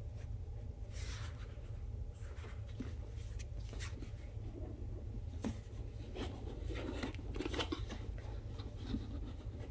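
Hands handling and opening an album box: scattered light scrapes, taps and rustles, over a steady low hum.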